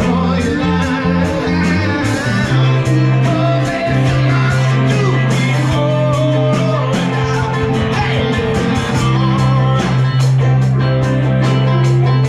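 A live band plays a tune with electric guitar, banjo, drums and bass over a steady drum beat, and the lead singer sings.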